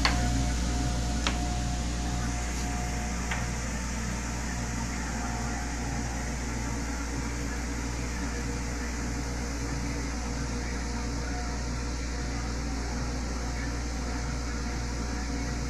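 Air hockey table's blower fan running steadily: a low hum under an even airy hiss, with two light clicks in the first few seconds.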